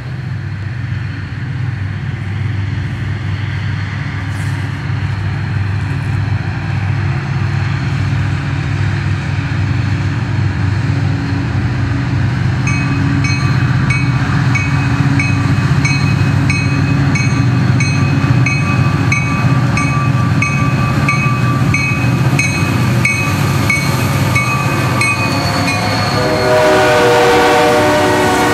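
Diesel freight locomotives approaching and passing, their engines rumbling steadily and growing louder. About halfway in a grade crossing bell starts ringing with even, steady strokes, and near the end the lead locomotive's horn blows as the locomotives pass close by.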